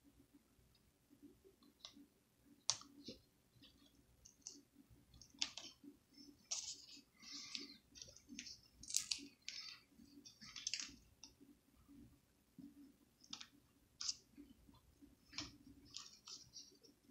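Faint, irregular clicks, taps and short scrapes of fingers handling a laptop screen panel, fumbling to seat its small, thin display cable plug into the connector.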